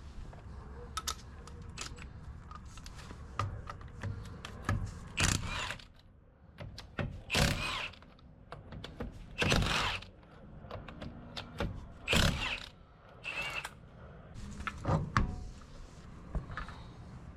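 Hand tools and metal parts being handled during brake work: scattered clicks and knocks, with about six louder short rattling bursts from about five seconds in.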